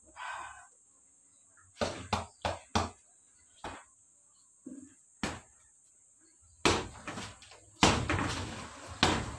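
Boxing-gloved punches landing on a hanging punching bag: a quick burst of four hits about two seconds in, then single hits every second or so, the last few the loudest.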